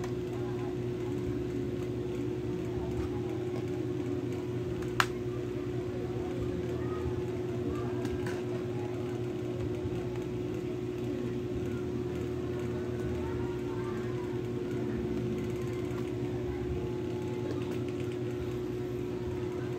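Plastic access covers on the underside of an LG XNOTE R510 laptop being handled and lifted off, with one sharp click about five seconds in, over a steady background hum.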